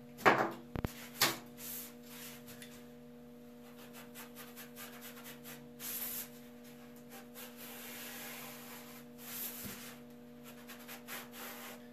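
Faint scraping and rubbing as a hand tool is worked along a foam kickboard to mark it out, with a few sharp knocks and handling sounds in the first second or so. A steady low hum runs underneath.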